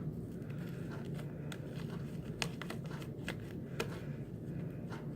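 Fluffy slime being kneaded and squeezed by hand, making irregular sticky clicks and pops. It is still a little sticky, and a little more Tide laundry detergent is being worked in as activator. A steady low hum runs underneath.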